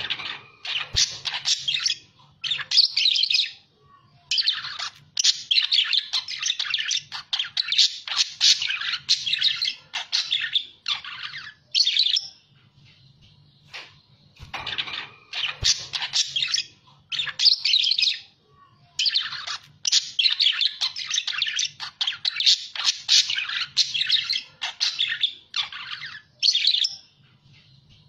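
Budgerigars chattering and warbling in long, fast runs of chirps, broken by a short pause about halfway through.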